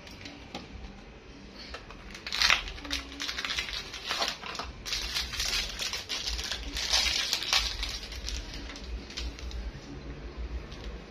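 Wet, crinkly rustling in irregular bursts over several seconds as a liquid is poured from a small plastic bottle onto dreadlocks and rubbed into the wet locks by hand.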